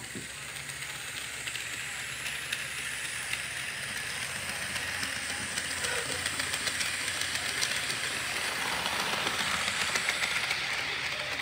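Model train cars rolling on sectional track, a steady whir of wheels with light clicking that grows louder as the train comes close and passes near the end.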